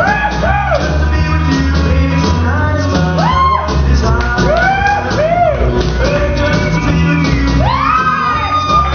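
Loud recorded music with a singer, played in a large room, with shouts and whoops rising and falling over it a few times.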